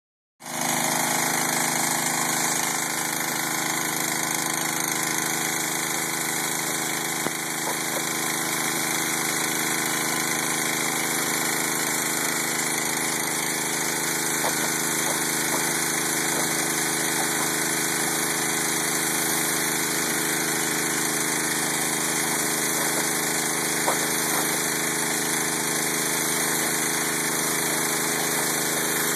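A small engine running steadily at one constant speed, with a few faint clicks now and then.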